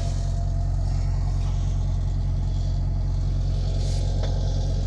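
Heavy-truck diesel engine idling steadily with a low, even hum; the engine is warm, having run for about 20 minutes.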